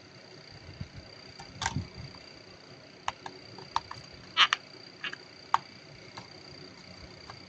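Small plastic toy kitchen pieces clicking and tapping against each other as they are handled, in about ten separate sharp knocks, the loudest a quick double knock about halfway through.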